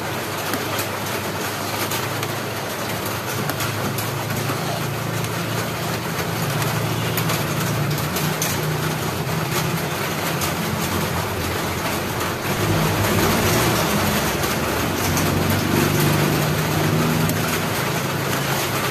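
Thick kalamay mixture of coconut milk and sugar bubbling at a boil in a wide pan over a gas burner, with a steady hiss and low hum, and a metal ladle stirring and scraping at times. It gets louder about two-thirds of the way through.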